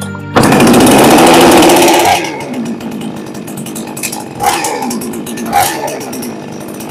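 New West 628 two-stroke petrol chainsaw engine starting up about a third of a second in and running fast for roughly two seconds, then dropping to a lower speed, with two short revs about halfway through.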